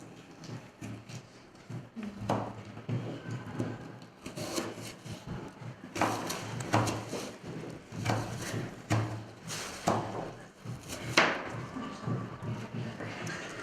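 Knives cutting fruit against cutting boards: irregular sharp knocks, several seconds apart at first and closer together in the middle, with faint background chatter.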